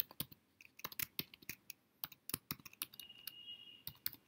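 Typing on a computer keyboard: a quick run of keystrokes, with a short pause about halfway through.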